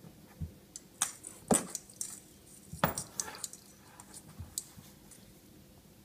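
A cat batting at a hanging gold Christmas bauble: a string of light clicks, knocks and clinks as the ornament is struck and swings. The two loudest knocks come about one and a half and three seconds in.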